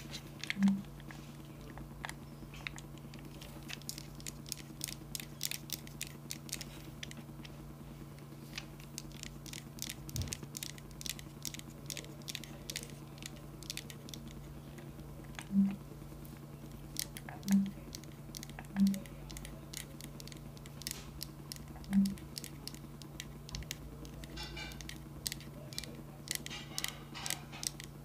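Buttons and thumbsticks of a PlayStation-style game controller being pressed and clicked in quick, irregular runs. Five short low buzzes stand out as the loudest sounds, one about half a second in and four between about 15 and 22 seconds in.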